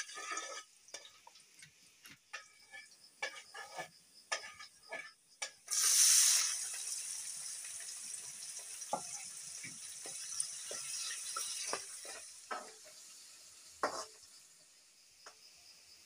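Spatula clinking and scraping in a wok, then a sudden loud sizzle about six seconds in as chopped onions hit the hot oil. The sizzle fades over the following seconds, with an occasional clink of stirring.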